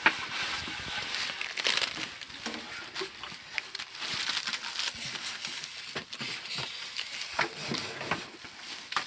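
A thin wooden rolling pin (oklava) rolling yufka dough out on a wooden board: soft continuous scraping with scattered light taps. A wood fire under an iron griddle crackles along with it.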